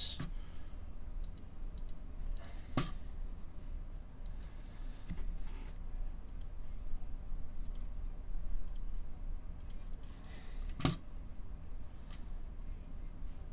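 Scattered light clicking of a computer mouse and keyboard, with two louder clicks, one about three seconds in and one about eleven seconds in, over a low steady hum.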